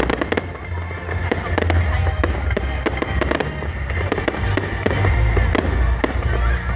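Loud music with a heavy, pulsing bass, peppered with many sharp cracks and pops.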